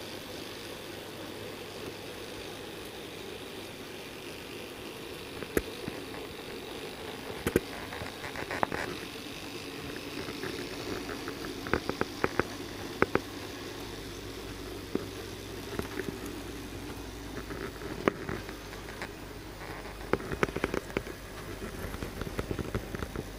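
Z scale model freight train with diesel locomotives and tank cars running on the layout: a steady faint whir with irregular sharp clicks of the small wheels passing over rail joints, coming in clusters. A low hum comes in about halfway through.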